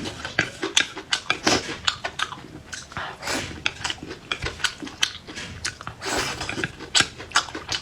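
Close-up chewing and crunching of chili peppers and garlic, with many irregular sharp crunches.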